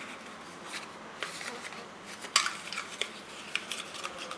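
A small cardboard parts box being opened by hand: several short, crisp ticks and rustles as the flap is worked open and the box is handled.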